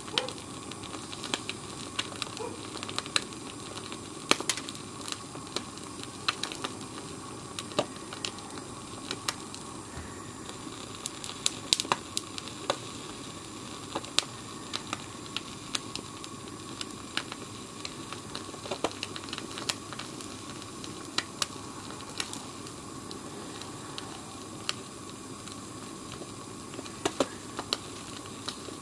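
Blowtorch flame hissing steadily against an egg, with irregular sharp crackles and pops as the heated egg sizzles, a cluster of them about halfway through and another near the end.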